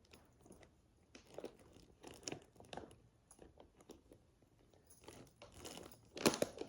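Faint, intermittent crinkling and crunching of packaging, a few separate crackles and then a denser, louder rustle near the end.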